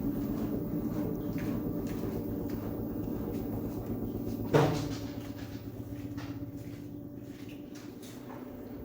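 LG 10 kg front-load washing machine running with a steady hum and a fast, rhythmic low rumble from the shaking drum. One loud knock comes about four and a half seconds in, after which the noise slowly fades. The owner puts the noise down to a fault in the motor.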